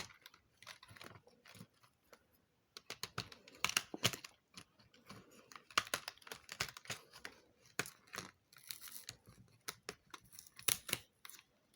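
Advent calendar door being torn open and the small piece of jewellery inside handled: irregular tearing, scraping and light clicks of cardboard and packaging.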